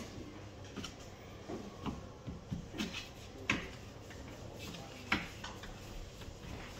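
Scattered light knocks and clicks of kitchen work during gözleme making, with two sharper knocks about three and a half and five seconds in.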